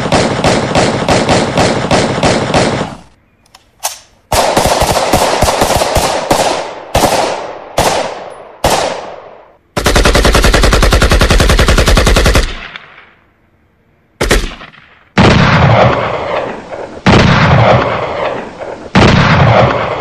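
Strings of rapid automatic gunfire that start and stop, each string a quick run of sharp shots fading at its end. About ten seconds in, a heavier, deeper string runs for a couple of seconds, followed by a short quiet gap.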